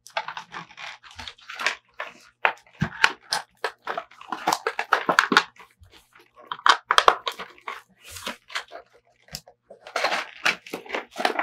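Cardboard and paper packaging inserts being pulled and torn out of a toy playset, crinkling and tearing in irregular spurts.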